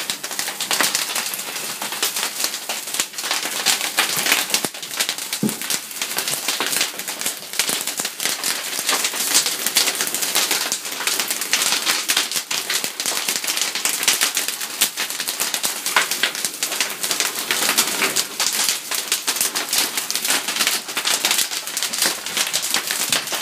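Live training fire burning overhead, crackling and popping rapidly and without let-up.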